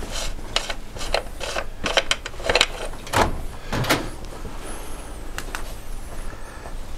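A run of sharp clicks and knocks from tools and metal parts being handled, with a brief high squeak about five seconds in.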